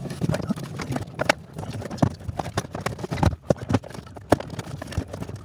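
Irregular knocks, clunks and scraping as a thick 6-gauge power cable is pulled and worked through a conduit, several knocks a second at uneven spacing.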